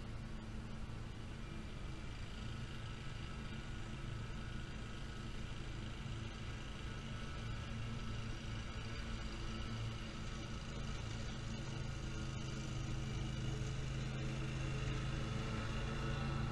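Lawn mower engine running steadily with a low, even hum, getting slightly louder near the end.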